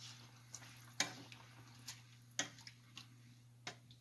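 Wooden spoon stirring rice into a wet stew in a cooking pan, knocking lightly against the pan four or five times, over a faint steady low hum.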